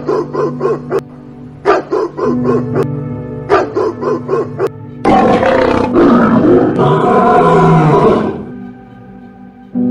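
A small dog barking in quick runs of four or five yaps, then, about halfway in, a lion roaring loudly for about three seconds, over steady background music.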